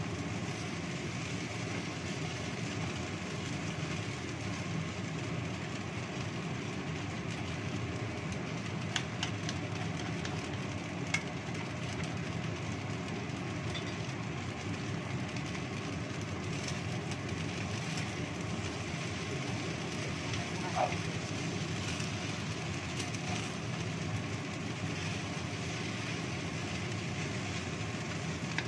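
Steady rushing of a lit gas burner and vermicelli frying in a nonstick wok, with a few light knocks of a wooden spatula against the pan.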